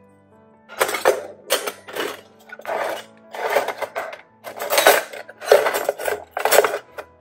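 Rhythmic scrubbing strokes, about ten of them at one to two a second, louder than the background music underneath.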